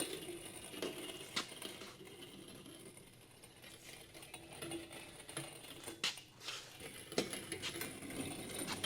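A few scattered light metallic clicks and clinks of tools and engine parts being handled, spread out over faint shop room noise.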